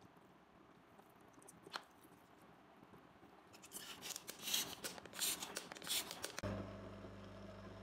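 A thin plastic bottle crinkling and crackling as a gloved hand squeezes it, a run of crackles lasting about three seconds. Near the end a steady low electrical hum starts suddenly.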